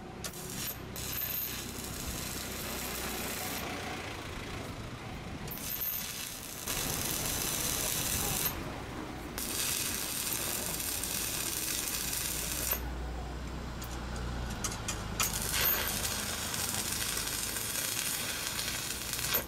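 Stick-welding arc crackling and sizzling as a coated electrode rod burns onto steel plate, stopping and restarting a few times in short runs.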